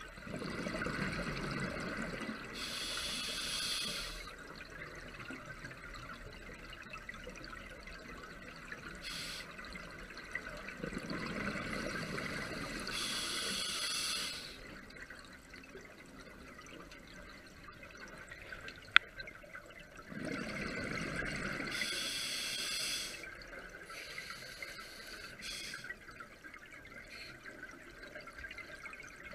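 Scuba regulator breathing underwater: three slow breaths about ten seconds apart, each a few seconds of bubbling and hissing, with a steady quieter water hiss between them. One sharp click about two-thirds of the way through.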